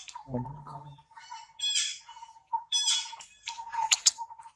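Macaques squealing: three short, shrill screeches about a second apart, with a brief low grunt just after the start and a faint steady high tone underneath.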